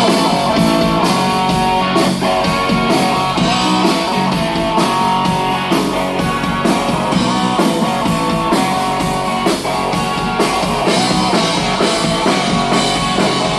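Live blues-rock band playing an instrumental intro, electric guitar over a steady drum-kit beat, before the vocals come in.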